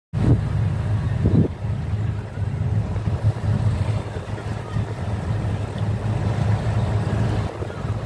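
Steady low rumble of a boat engine running at sea, with water wash and wind buffeting the microphone, gusting briefly near the start.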